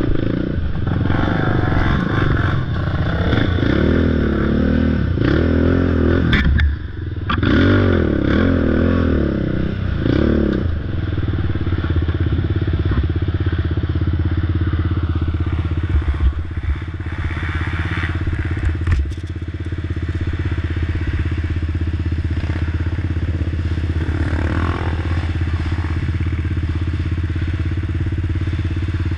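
Race car engine running hard under load. Its pitch rises and falls repeatedly over the first ten seconds, then holds as a steady drone.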